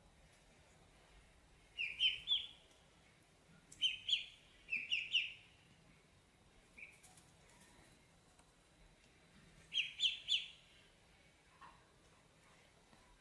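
Ducklings peeping: high, quick calls in clusters of two to four, several times, with a long quiet gap before the last cluster.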